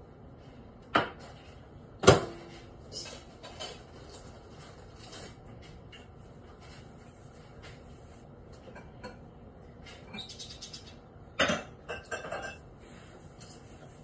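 A drinking glass set down on a stone kitchen countertop and a small microwave's door shut: two sharp knocks about one and two seconds in, the second the loudest with a short ring, then a few light clinks. Another cluster of knocks and clatter comes near the end.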